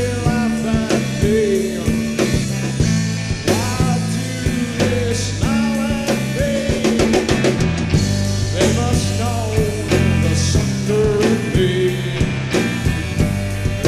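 Rock music without lyrics: a steady drum-kit beat over a stepping bass line.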